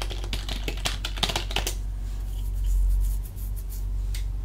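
Computer keyboard keys clicking as a password is typed at a terminal prompt: a quick run of keystrokes in the first second and a half, then a few scattered key presses, over a low steady hum.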